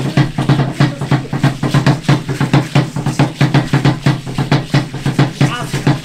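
Aztec dance drumming on a large upright drum: a fast, even beat of about four to five strokes a second.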